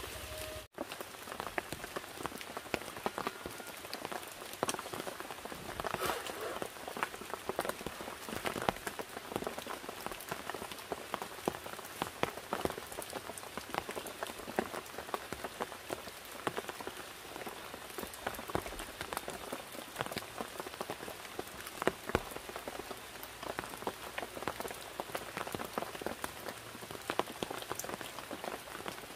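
Steady rain falling, an even hiss dotted with many irregular drop taps.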